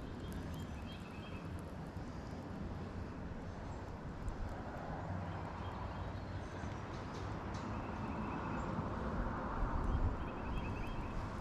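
Wind buffeting the microphone with a steady low rumble, and water lapping and slapping against the boat's hull in a 20-plus mph wind.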